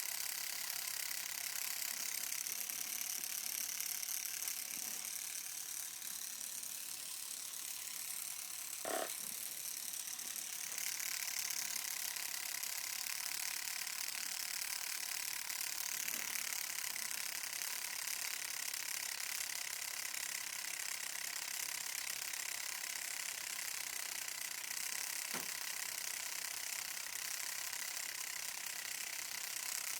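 Homemade tattoo machine, its guitar-string needle running in a mechanical-pencil tube, buzzing steadily with a fine rattling whir while tattooing. Its tone shifts a little about a third of the way in, and there are a few light knocks.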